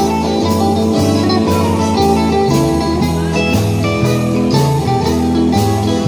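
Live blues band playing: a Telecaster-style electric guitar over electric bass and drums, with a steady beat of drum hits about twice a second.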